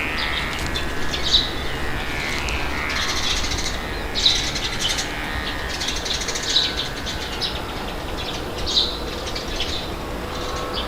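Birds chirping every second or so over a steady low wind rush.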